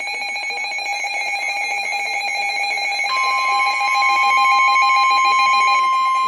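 Emergency Alert System alert tones: a rapidly pulsing electronic alert, then about three seconds in a steady single-pitched alarm tone starts and holds. These are the attention tones that open a new severe thunderstorm warning broadcast.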